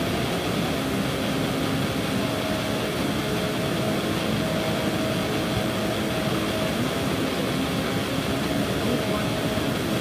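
Stream water rushing steadily over rocks into a pool, a continuous even rush.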